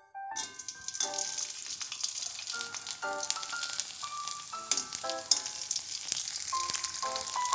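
Hot cooking oil in an aluminium wok sizzles and crackles as ground seasoning paste is dropped in to fry. The sizzle starts suddenly just after the beginning and keeps going steadily, with background music playing over it.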